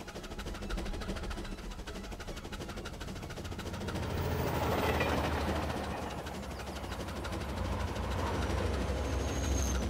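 Motorised toy train running along plastic track: a steady low rumble with fast, even clicking, louder in the middle and again near the end.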